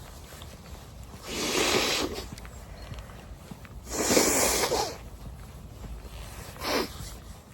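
A person blowing their nose hard twice, each blow lasting about a second, then a short third burst of breath near the end.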